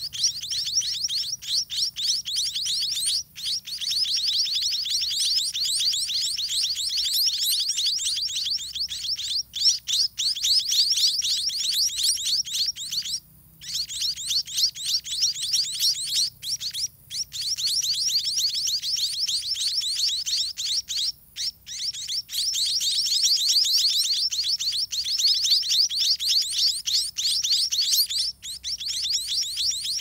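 White-rumped munia nestlings begging while a parent feeds them: a rapid, nearly unbroken stream of high-pitched chirps, many a second, with a few short breaks.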